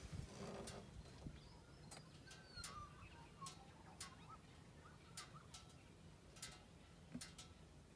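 Near silence: faint bird chirps in the background, a few light clicks and a low steady hum.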